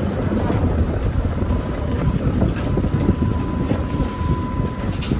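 Streetcar 460 riding along the track, heard from on board: a steady rumble of the car and its wheels on the rails. A faint steady whine joins in about two seconds in.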